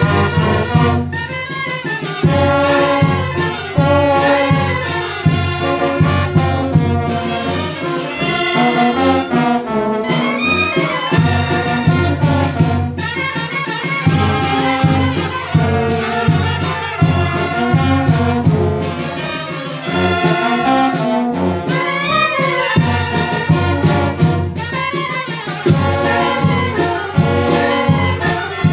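A Mexican wind band (banda de viento) playing, with trombones, trumpets and clarinets together over a regular low-end pulse.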